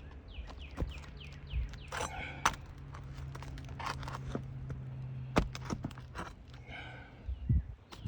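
Scattered clicks, knocks and scraping from asphalt shingles being pried up and handled, with nails being worked loose, over a steady low hum.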